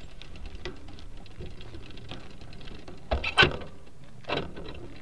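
Light clicking and knocking from a bicycle-mounted rear camera rattling on rough, patched pavement, with a loud clatter a little over three seconds in and a smaller one about a second later, as the bike jolts over bumps.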